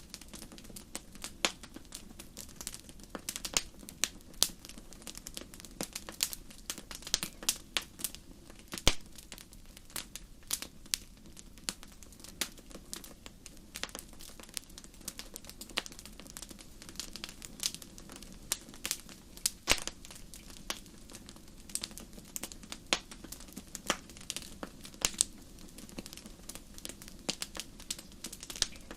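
Wood fire burning in a fireplace, crackling with many sharp irregular pops and snaps over a low steady hiss.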